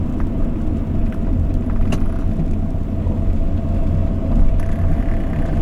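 Steady rumble of engine and road noise inside the cab of a moving refrigerated van, with a faint steady whine and a few light clicks.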